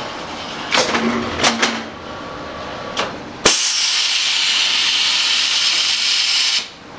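Paper-towel laminating machine at work: a few sharp knocks and clunks in the first half, then a loud steady hiss that starts suddenly about halfway through and cuts off suddenly about three seconds later.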